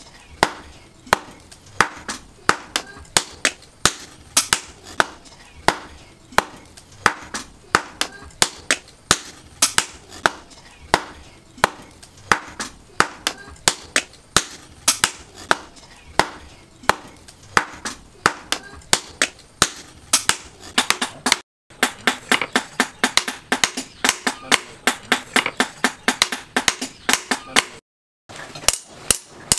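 Hand hammer blows on a red-hot steel knife blade laid on a round steel anvil, forging the blade to shape. The sharp metallic strikes come about two a second, then faster, about three or four a second, after about twenty seconds.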